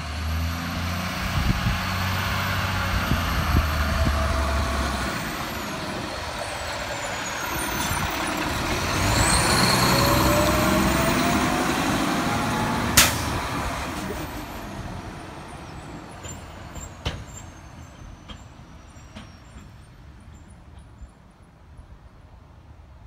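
Bridgeport Trinity garbage truck running as it drives up, passes close by and pulls away. The heavy engine rumble is loudest as it passes and carries a whine that rises and falls in pitch. A short, sharp burst comes about halfway through, and the sound then fades as the truck drives off.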